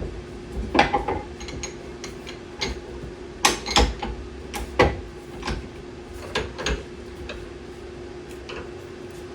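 About a dozen irregular knocks and clicks, a few of them sharper and louder, over a steady low hum.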